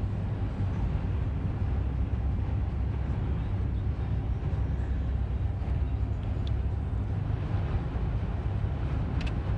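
Steady low rumble of tyre, engine and wind noise inside a car's cabin, driving at moderate speed on a snow-packed highway.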